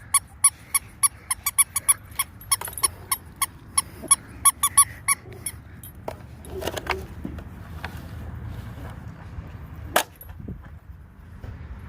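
Squeaky Nerf dog ball squeezed over and over: a quick run of short, high squeaks, several a second, then a few more squeaks a little later and a single sharp click near the end.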